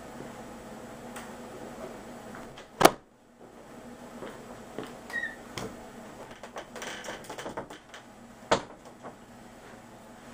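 Quiet room tone with scattered small clicks and knocks, two sharp knocks standing out: one about three seconds in and another near the end.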